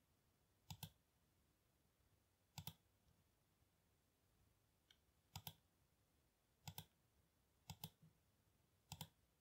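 Computer mouse button clicking: six short double clicks at irregular intervals, with near silence between them.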